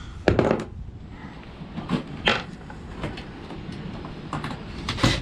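Pieces of scrap metal knocking and clanking as they are handled, about half a dozen separate sharp knocks spread over several seconds.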